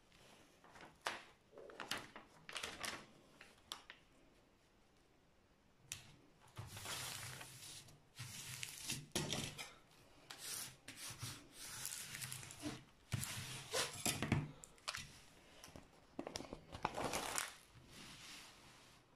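Plastic protective film on a diamond-painting canvas rustling and crinkling as a hand smooths and rubs it flat, in short irregular spells with a quieter lull about four to six seconds in.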